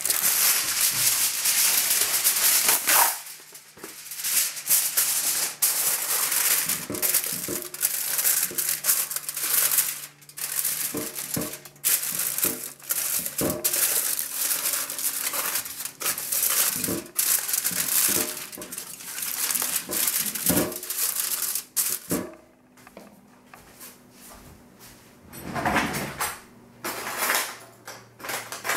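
Sheet of aluminum foil crinkling and crackling as it is pressed and folded into a glass baking dish. It goes quieter about three quarters of the way through, with one more short burst of crinkling near the end.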